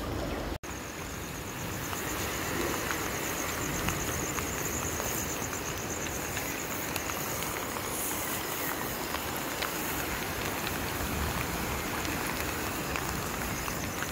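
Steady rain falling on standing floodwater. A high, rapidly pulsing trill runs over it for much of the time, then fades.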